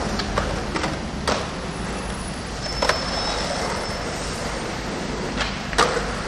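Skateboard rolling on street asphalt over steady traffic noise, with a few sharp clacks; the loudest, near the end, is the board's tail popping for an ollie.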